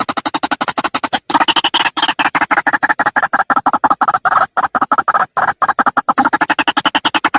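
White-breasted waterhen calling: a fast, even run of harsh notes, about nine a second, with a brief break about a second in.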